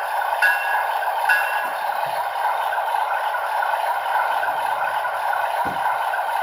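Sound-equipped model diesel locomotive's recorded engine sound playing steadily through its small onboard speaker, thin and without bass. A few short clicks with brief high chirps come in the first second and a half.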